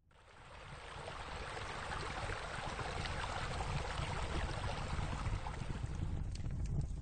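Steady running and splashing water, as from a bubbling spa spilling over into a pool, fading in from silence over the first couple of seconds, with a low rumble beneath. A few light sharp clicks come in near the end.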